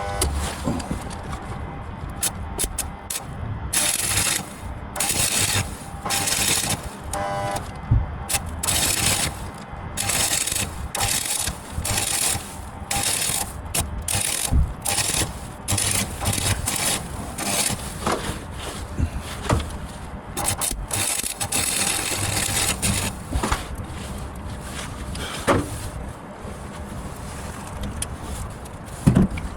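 MIG welder laying short stitch welds on thin, rusty car body steel, each burst a crackling hiss that starts and stops every second or so.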